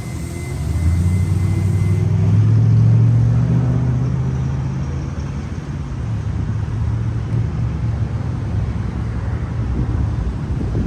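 Low, steady rumble that swells about three seconds in and then eases off.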